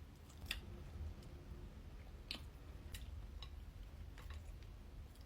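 Faint close-up chewing of a thick cheese and pickle sandwich, with a few scattered soft mouth clicks.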